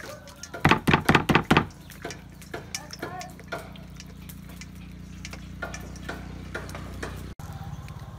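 Hands sloshing and splashing water while washing plucked quail in a metal basin, with a quick run of loud splashes about a second in, then quieter intermittent sloshing. A steady low hum runs underneath from about two seconds in.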